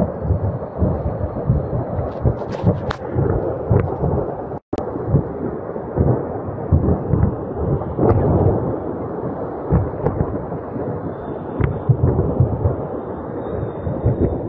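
Continuous deep rumbling from a burning ammunition depot, dense with cracks and thuds as munitions go off one after another.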